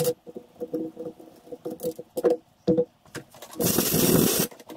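Hand reaming of a classic Mini rear radius arm's bronze bush: light metal clicks and knocks as the reamer and its wrench are worked in the vice-held arm, then about three and a half seconds in a loud hiss lasting about a second.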